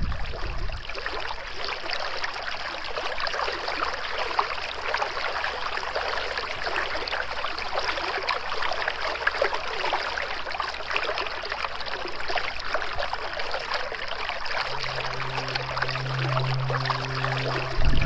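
Continuous running water, an even stream-like flow. A low, held musical tone comes in about three-quarters of the way through.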